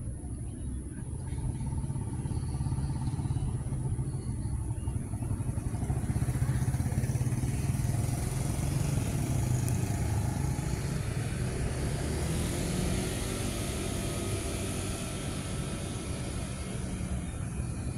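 A motor vehicle engine running in the background, growing louder through the middle and easing off again toward the end, over a thin, steady high-pitched tone.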